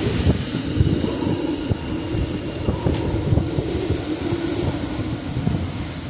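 Hurricane eyewall wind blowing hard and without letup, with gusts buffeting the microphone in low thumps and a low wavering tone underneath.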